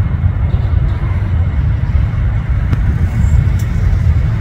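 Airliner jet engines giving a loud, steady low rumble, with a faint steady whine above it.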